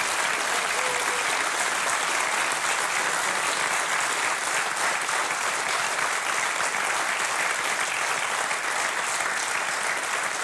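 Studio audience applauding: steady, dense clapping from a large crowd.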